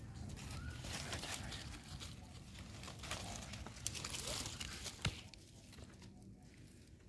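Rustling and crackling of leaves and dry leaf litter, with a sharp click about five seconds in; quieter toward the end.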